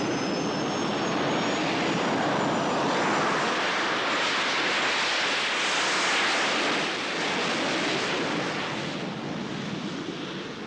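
Jet engines of a rear-engined business jet running at high power as it moves away down the runway: a loud, steady rushing roar, with a thin high whine in the first few seconds. The roar eases a little toward the end as the aircraft draws away.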